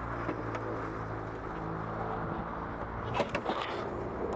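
Car engine idling steadily, with a few short knocks about three seconds in.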